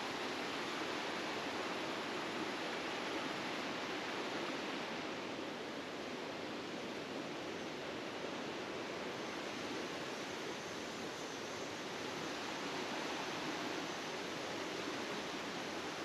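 Small rocky forest creek running: a steady, even rush of water.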